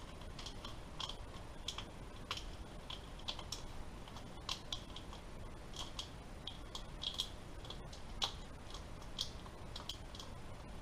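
Faint, irregular small plastic clicks and rustling, several a second, from wiring being worked by hand as soldered wires are fed back into corrugated plastic split-loom conduit.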